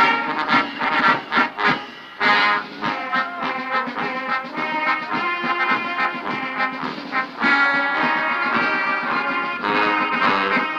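Background music, led by brass instruments.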